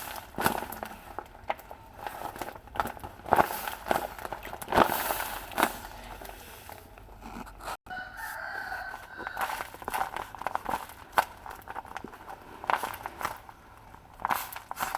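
Paper crinkling and rustling in short bursts as paper squishies are handled, with a rooster crowing once about halfway through.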